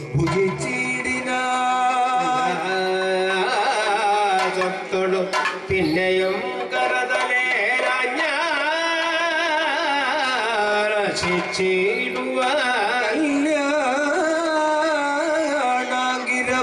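Kathakali music: male singers holding ornamented, wavering sung notes, accompanied by drumming, with a few sharp strikes through it.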